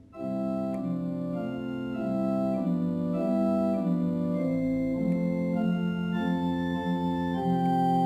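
Organ playing a slow hymn tune in held chords that change about once a second.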